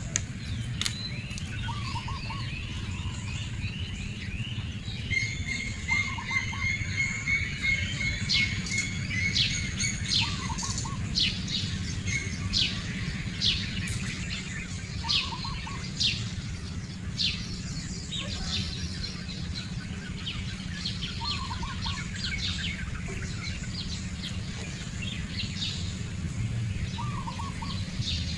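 Wild birds chirping and calling, with many short sharp chirps and a quick run of repeated notes a few seconds in. A short lower call recurs about six times, over a steady low hum.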